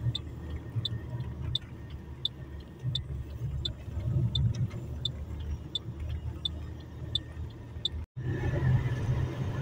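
Car cabin road and engine rumble while driving, with a turn-signal indicator ticking about one and a half times a second. The ticking stops at an abrupt break about eight seconds in, and the rumble carries on without it.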